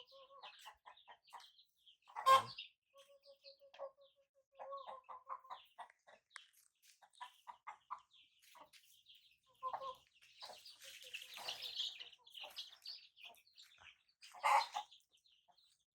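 Chickens clucking in quick runs of short calls, with higher chick peeps over them. Two louder, sharper bursts stand out, one about two seconds in and one near the end.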